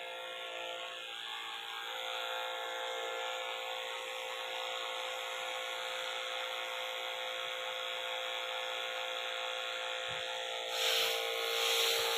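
Small motor-driven spray pump running steadily with a whine, forcing a fine water mist from a brass nozzle on a hose. A louder hiss of spray rises near the end.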